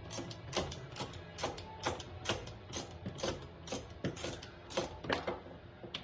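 Screwdriver turning a screw in the front bumper of a 1997 Club Car DS golf cart, giving sharp mechanical clicks in an uneven rhythm of about two to three a second.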